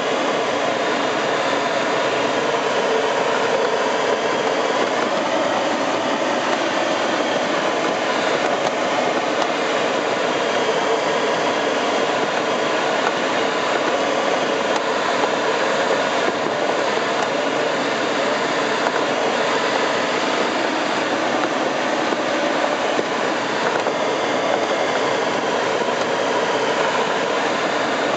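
Steady rush of air over the canopy of a Nimbus 4T glider, heard inside the cockpit while soaring.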